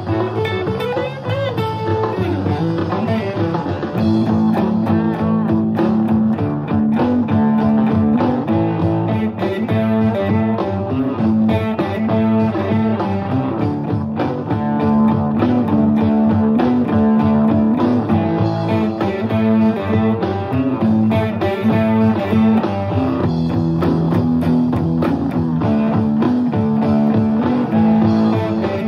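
Momose Stratocaster-style electric guitar played through a small Fender combo amp: a continuous run of single notes and chords over low notes repeating at an even pace.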